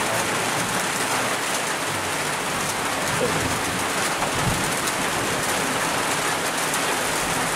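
Steady rain, an even hiss, with a brief low rumble about four and a half seconds in.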